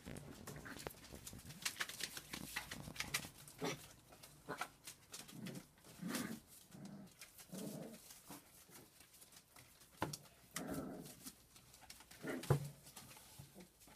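Cockapoo puppies making soft, short whimpers and grunts every second or so, among small clicks and scuffles.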